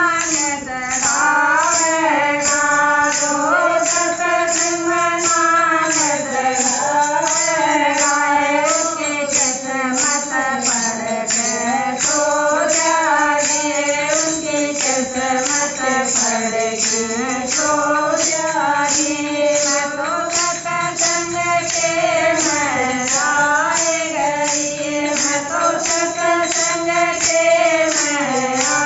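Women singing a Haryanvi bhajan together, keeping time with hand-held kartal jingle clappers that clash about twice a second.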